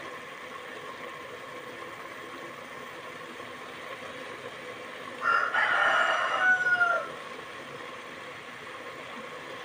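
A rooster crows once, about five seconds in, for under two seconds, ending on a falling note. Under it runs a steady background hiss with a faint hum.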